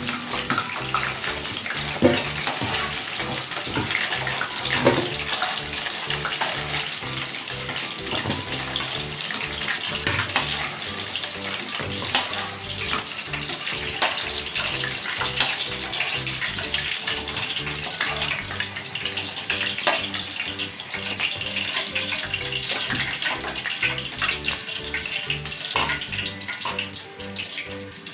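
Chicken pieces frying in hot oil in a kadai: a steady sizzle with scattered crackling pops.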